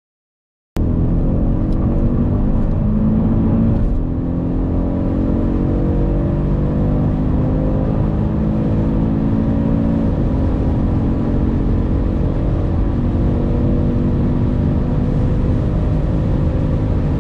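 A turbocharged performance car's engine pulling hard under full-throttle acceleration. The engine note starts abruptly about a second in, climbs steadily, and drops twice at quick upshifts, about four and ten seconds in.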